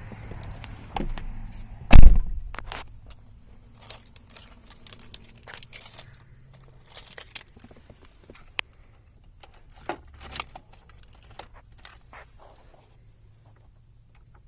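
A loud thump about two seconds in, followed by scattered light jingling and clicking of keys being handled.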